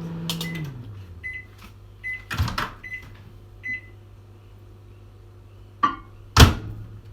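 Microwave oven's running hum winding down and stopping, followed by short high beeps about once a second and two loud knocks, about two and a half and six and a half seconds in, as of the door being handled.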